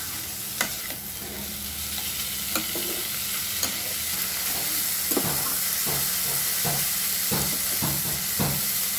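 Boiled banana flower being stir-fried with spices in a pan: a steady sizzle, with a spatula scraping and knocking against the pan, the strokes coming about twice a second in the second half.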